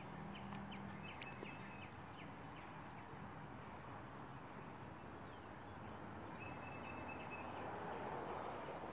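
Quiet outdoor background with a few faint ticks in the first second and a half and two short high chirps, one about a second in and one about six and a half seconds in.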